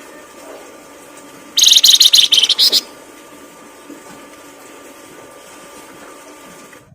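A songbird's loud, fast trill of rapid high notes lasting about a second, starting about one and a half seconds in, over a faint steady background hum.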